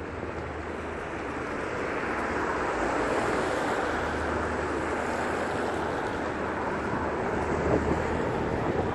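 Road traffic on a wet road: a steady hiss of tyres on wet tarmac that grows louder over the first few seconds as vehicles approach, with wind rumbling on the microphone.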